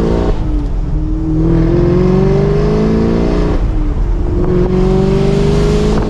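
A 2023 Chevrolet Camaro SS's 6.2-litre V8 with a modified, louder exhaust, accelerating through the gears of its six-speed manual. The engine note climbs, drops at an upshift right at the start, climbs again, and drops at a second upshift about three and a half seconds in before rising once more. It is heard from the driver's seat with the convertible top down.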